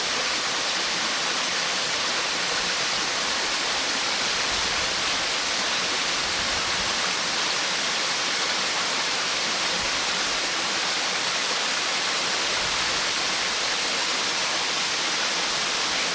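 Waterfall: falling water rushing in a steady, loud hiss that doesn't change.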